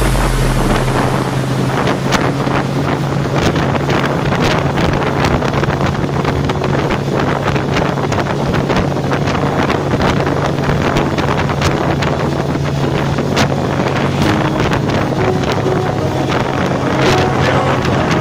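Evinrude Fastwin outboard, a twin-cylinder two-stroke, running at a steady speed under way in an inflatable boat, with wind buffeting the microphone.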